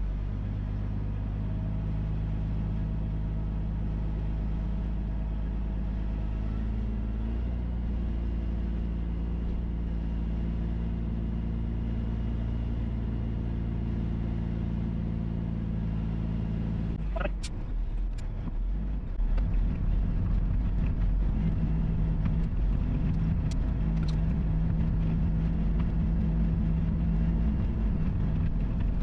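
Diesel engine of a triaxle dump truck running steadily as the truck drives along a dirt track, its note shifting slightly partway through. About halfway through, a sharp knock, then a louder, rougher rumble with a few more knocks as the truck rolls over the rutted dirt.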